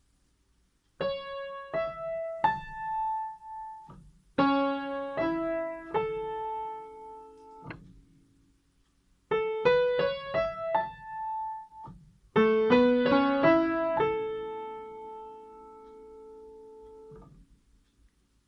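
Piano playing by-ear versions of the chime melodies that JR East station platforms sound when a train is approaching. There are four short phrases of rising notes, the second and fourth with chords underneath, each ending on a held note. The last note is held for about three seconds before it is released.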